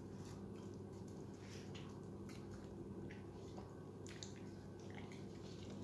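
Faint, scattered wet clicks and smacks of a small dog licking and chewing at a tablet offered from a hand, over a steady low hum.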